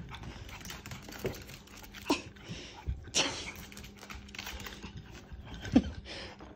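A frightened small terrier scrambling about, its claws clicking and scuffling on the hard floor and couch. A louder thump comes near the end as it jumps onto the couch.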